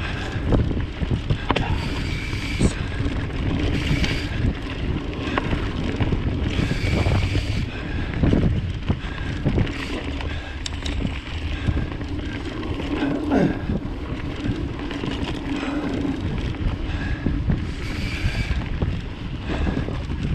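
Mountain bike rolling fast along a dirt singletrack: tyre noise and the bike rattling and knocking over small bumps, with wind buffeting the microphone.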